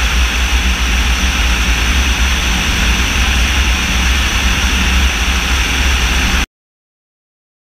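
Steady engine drone of an Inokhodets (Orion) propeller strike drone in flight under a loud rush of airflow over the wing-mounted camera. It cuts off abruptly about six and a half seconds in.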